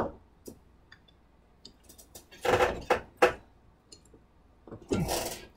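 Bar clamp being put onto a wooden board and tightened against a handscrew clamp: a sharp click at the start, then bursts of clicking and knocking about halfway through and again near the end.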